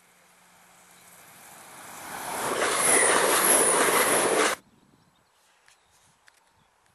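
A train approaching, its rushing noise building steadily to a loud pass with a wavering high squeal on top, then cut off abruptly about four and a half seconds in.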